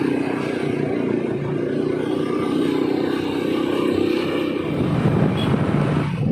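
Motorcycle engine running steadily while riding, with wind rush on the microphone.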